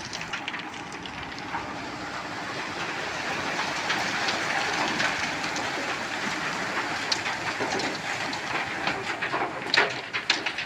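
Loose gravel sub-base material being moved by heavy road-building machinery: a steady grinding rush that swells midway, then breaks into sharp clattering of stones near the end.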